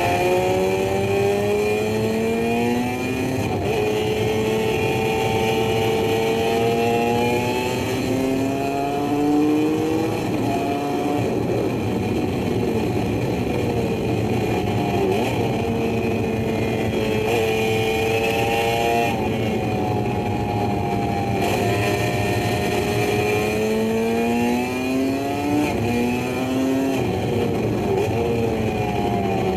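Two-stroke motorcycle engine revving hard, its pitch climbing through the revs and dropping back several times as it changes gear and eases off. It is a dubbed-on recording, not the bike in the picture.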